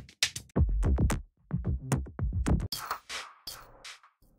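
Electronic drum loops from a cinematic sample pack auditioned one after another. A loop of heavy, bass-rich hits switches about three seconds in to a sparser loop of crisp, hissy hits with little bass.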